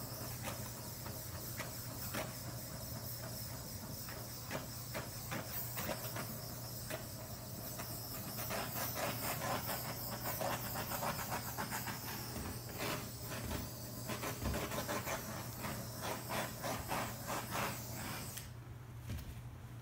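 Handheld torch hissing steadily as its flame is swept over wet epoxy resin to pop surface bubbles, shutting off abruptly about eighteen seconds in.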